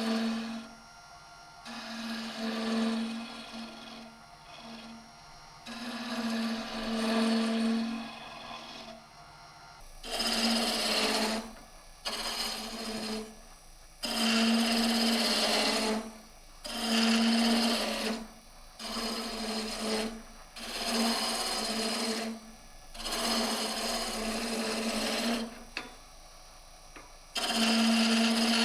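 Woodturning on a wood lathe: a tool is pressed again and again against a spinning wooden chair leg. It makes about a dozen grinding, rasping bursts of one to two seconds each, with short quieter gaps between them.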